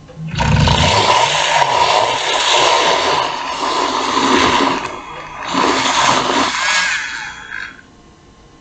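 Countertop blender running in two bursts, a long one and a shorter one after a brief pause, blending an iced coffee drink.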